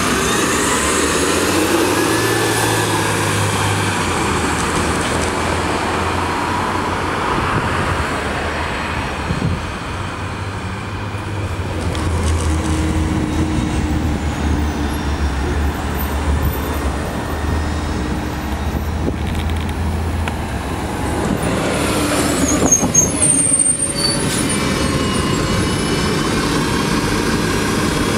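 Natural-gas (CNG) city transit buses running at the curb and in street traffic, their engines giving a low steady hum. About 22 seconds in, a louder rush of passing-vehicle noise carries brief high squeals.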